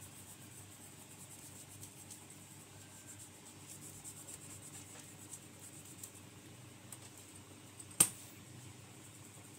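Faint rubbing and small ticks from old dried thermal paste being wiped off a laptop heatsink, over a low steady hum, with one sharp click about eight seconds in.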